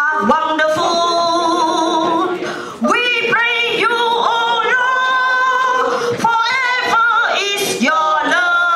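A woman singing solo and unaccompanied into a handheld microphone, holding long notes with a short break about three seconds in.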